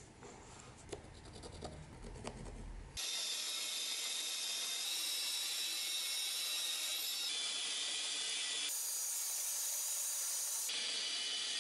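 Pencil scratching along a steel ruler as a wooden block is marked out. About three seconds in, a bandsaw starts cutting through the block: a steady high hiss of the blade in the wood.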